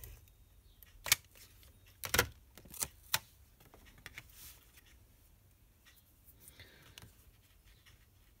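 Card and patterned paper being handled on a tabletop: a few sharp taps and clicks in the first three seconds or so, then soft paper rustling.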